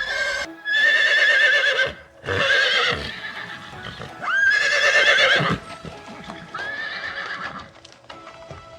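A horse whinnying repeatedly: four or five high, quavering neighs, each about a second long, with short pauses between them.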